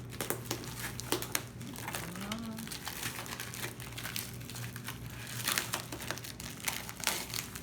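Tape and packaging crinkling and crackling in irregular bursts as a heavily taped parcel is worked open by hand.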